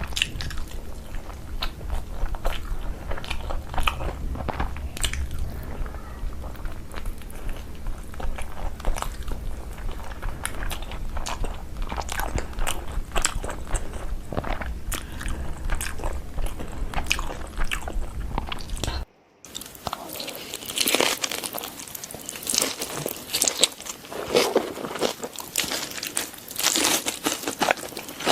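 Close-miked eating: repeated crunchy bites and chewing of food. Near two-thirds of the way through the sound drops out for a moment, then resumes without the low hum heard before.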